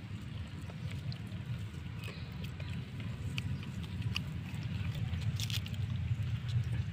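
Steady low rumble of wind on the microphone, slowly growing louder, with a few faint clicks and rustles in the dry grass and leaves.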